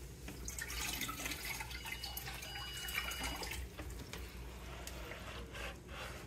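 Water splashing and trickling as a plastic pitcher is dipped into a bucket of water and filled. It is louder in the first half and quieter toward the end.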